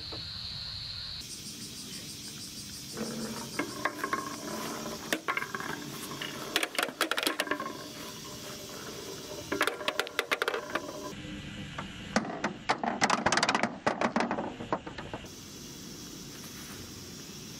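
Small plastic balls rolling along wooden bench slats and clattering into a plastic toy garage's bins, in several bursts of rapid rattling clicks over a steady outdoor hiss.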